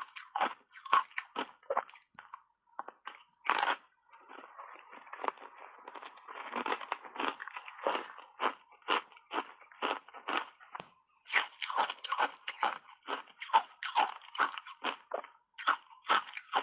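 Hard ice chips coated in matcha powder being bitten and chewed, with crisp crunching. There is one loud bite a few seconds in, then a stretch of dense grinding crunches, then quick separate crunches about two to three a second.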